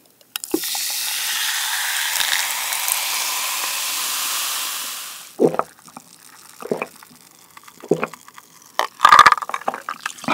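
Cola poured from a plastic bottle into a glass, fizzing and hissing for about five seconds. Then a few gulps as it is drunk, and a loud exhale near the end.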